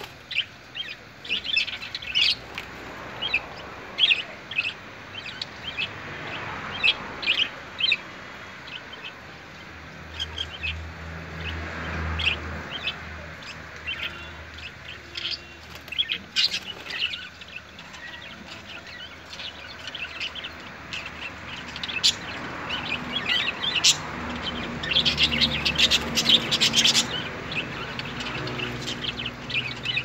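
A flock of budgerigars chirping: a steady run of short, sharp chirps, busiest about 25 seconds in.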